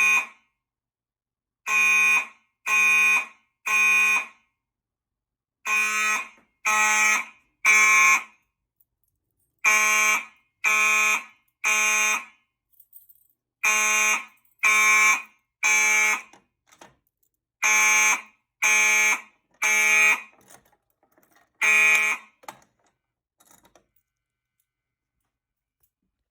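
Gentex electronic horn strobes sounding a code 3 (temporal-3) evacuation pattern, synchronised by a System Sensor MDL3R module: three blasts of about half a second, a pause, and the group again about every four seconds. Near the end the horns stop after the first blast of a group.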